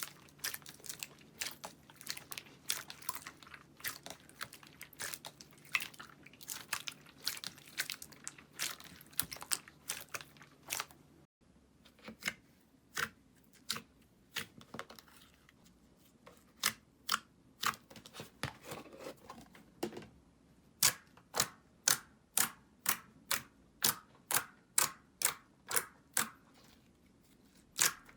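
Slime being handled, making sharp crackling clicks and pops. About eleven seconds in the sound changes abruptly. From about seventeen seconds it settles into evenly spaced pops, about two a second.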